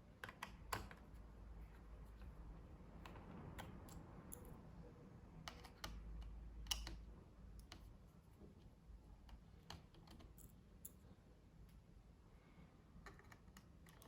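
Faint, irregular small clicks and taps from laptop parts and tools being handled during disassembly, loudest just under a second in and again about seven seconds in.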